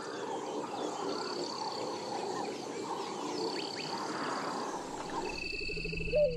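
A dense chorus of many overlapping wild animal calls at a waterside at dusk, with one louder short call near the end. Low, steady music fades in about five seconds in.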